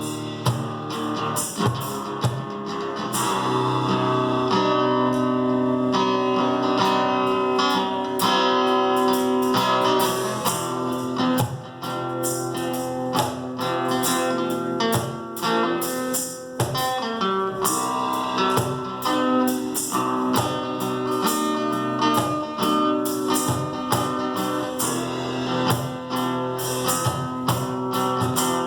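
A live two-piece acoustic band playing an instrumental passage: a strummed guitar with percussion hits. The hits are dense at the start, thin out to mostly held guitar chords, and come back strongly in the second half.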